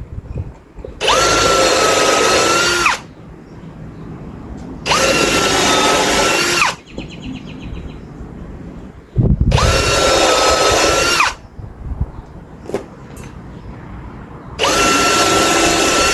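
Power drill driving screws into wood: four runs of about two seconds each, the motor whine rising as it starts and dropping as it stops. Low knocks between the runs.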